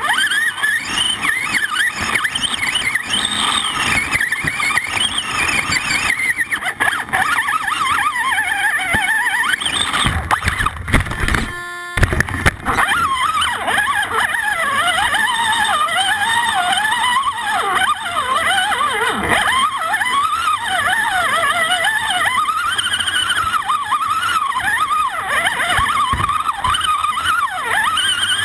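Electric motor and gear drivetrain of an Axial AX10 radio-controlled rock crawler whining, the pitch rising and falling constantly with the throttle as it climbs over rock. About ten seconds in there are a couple of seconds of loud low rumbling and knocking.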